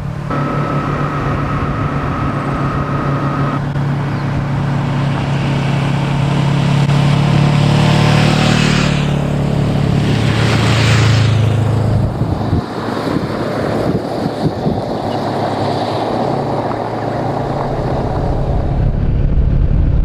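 2013 Honda CB500X parallel-twin engine with a Staintune exhaust running steadily under way, with wind and road noise. The engine note swells a little around the middle, and two brief rushes of noise come about 9 and 11 seconds in.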